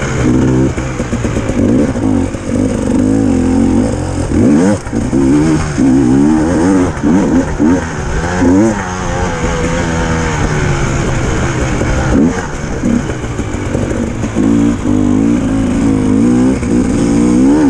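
Enduro dirt bike engine under hard riding, its revs rising and falling again and again as the rider accelerates and shifts, heard from a helmet-mounted camera.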